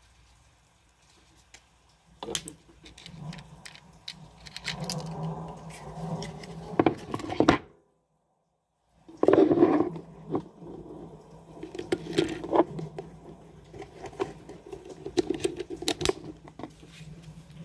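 Handling noise from a Sig Sauer P365 pistol and its holster: sharp clicks, knocks on a wooden tabletop and rustling as they are set down and fitted together. The sound cuts out completely for about a second near the middle.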